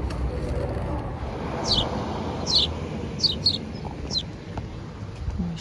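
A bird giving a run of short, sharp chirps, each sweeping quickly downward, about five over two and a half seconds, over a steady low rumble of outdoor background noise.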